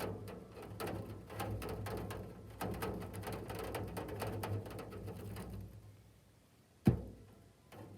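Hailstones hitting, a dense irregular patter of many small hits that stops about six seconds in, followed by one sharp knock near the end.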